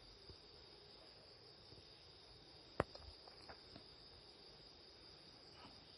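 Near silence: a faint steady high-pitched drone in the background, with one sharp click a little under three seconds in and a few fainter ticks after it.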